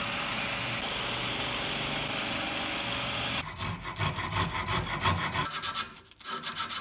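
Drill press running and boring into a small wooden piece, a steady whirring hiss with a low hum, for about three and a half seconds. Then a round hand file rasping a clamped wooden block in quick back-and-forth strokes, followed near the end by sandpaper rubbed inside the hole.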